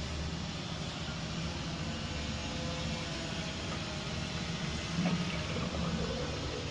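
Water running steadily from a basin mixer tap and draining through a repaired bottle trap, run to test the trap for leaks. A brief low bump about five seconds in.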